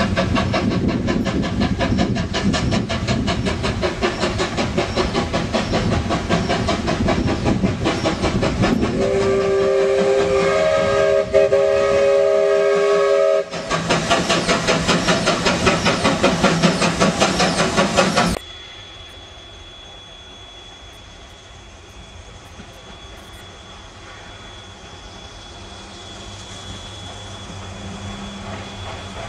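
Steam tank locomotive working hard up a grade, with rapid, even exhaust chuffs, and its steam whistle sounding a steady multi-note chord for about four seconds in the middle. After a sudden cut about two-thirds of the way through, the sound drops to a much quieter low rumble with a faint steady high tone.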